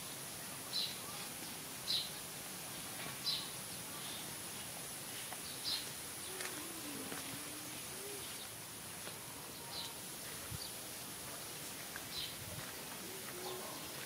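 A bird chirping in short, high single notes every second or two over a steady high hiss, with a brief lower wavering call about halfway through.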